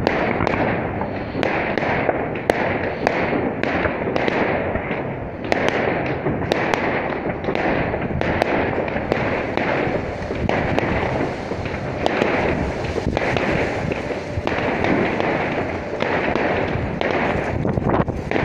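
Fireworks display: aerial shells and fountains going off in quick succession, a near-continuous run of sharp bangs and crackling pops with no let-up.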